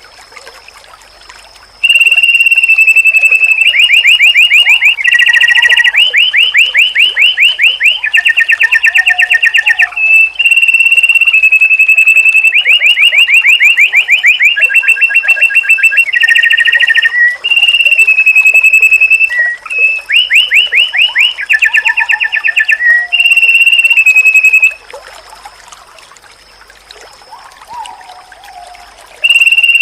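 White-eye (pleci) song played as a training recording: loud, clear whistled notes alternating with fast trills of about a dozen notes a second, in long phrases. It starts about two seconds in, stops about 25 seconds in and returns near the end, over a faint steady high tone.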